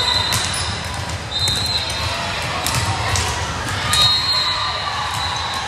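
Indoor volleyball gym sounds: the ball thumping and sneakers squeaking briefly on the court three times, over a steady murmur of crowd voices.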